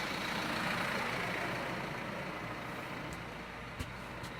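Tractor engine running steadily with a broad rushing hiss, and a couple of sharp clicks near the end.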